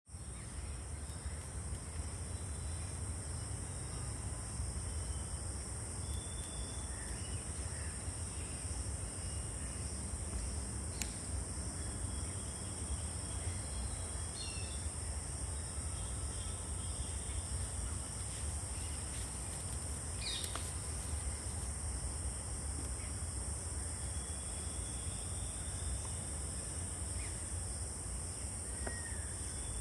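Insects droning steadily at a high pitch over a low rumble, with a few faint, short bird chirps scattered through, and a couple of sharp clicks.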